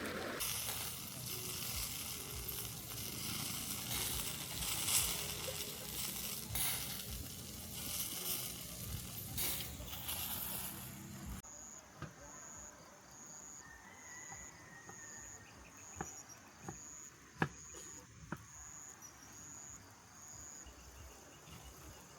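A steady hiss for the first half, then a sudden cut to a quieter backdrop. In it an insect repeats a short, high chirp about once a second, and a few sharp clicks sound.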